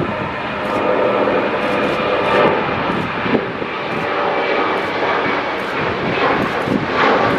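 Boeing 737-800's twin turbofan engines at take-off power as the jet lifts off and climbs away: a steady broad jet noise with faint whine tones, growing louder about a second in.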